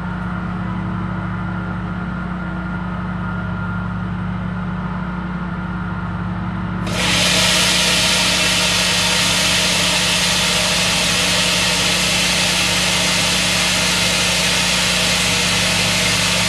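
Pressure washer pump running steadily while it fills an air-compressor tank with water for a hydrostatic test. About seven seconds in, a loud rushing hiss of water sets in and continues over the hum.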